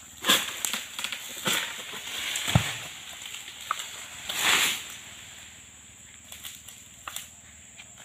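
Oil palm harvesting with a long-pole sickle at the crown: sharp snaps and cracks as fronds and a fruit bunch are cut. A heavy thud comes about two and a half seconds in, and a loud rustling crash about two seconds later as the cut material falls.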